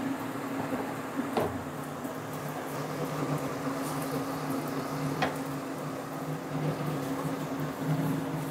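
Kitchen range hood fan running with a steady low hum over the stove, with two light clicks of a spatula against the frying pan, about a second and a half in and about five seconds in.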